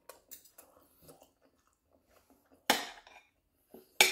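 A person chewing food, with a fork and spoon clinking and scraping on a plate; two sharp, louder clinks, one a little before the end and one at the very end.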